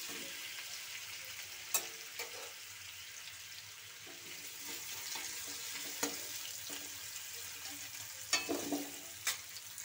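Pumpkin chunks sizzling in hot mustard oil in a metal kadai, with a metal spoon scraping and knocking against the pan several times as the pieces are stirred and scooped out.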